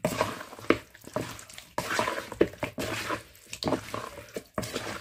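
Wooden spoon stirring raw chicken wings in a thick mustard and barbecue marinade in a mixing bowl: irregular wet squelches, slaps and scrapes against the bowl.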